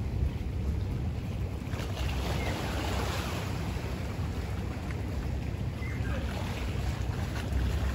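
Wind buffeting the microphone in a low, uneven rumble, over the soft, steady wash of a calm sea.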